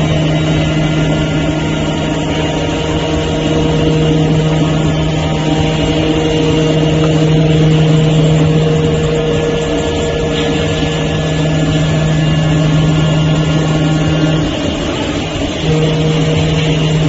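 CNC oscillating knife cutting machine running as it cuts PVC board: a steady mechanical hum with a low buzzing tone, which drops out for about a second near the end and then comes back.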